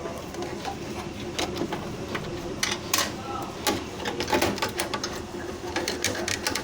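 Irregular small clicks and knocks of computer hardware being handled and fitted: a motherboard and its heatsink mounting bracket being pushed into place.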